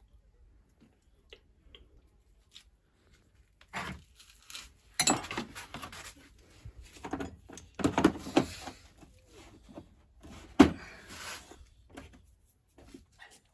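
Irregular knocks, clinks and rattling, as of tools and metal parts being handled and set down during repair work, with a single sharp knock about ten seconds in standing out as the loudest.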